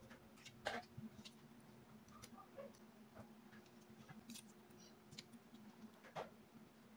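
Faint scattered clicks and taps of hands handling a paper-and-ribbon craft, the sharpest about a second in and near the end, over a low steady hum.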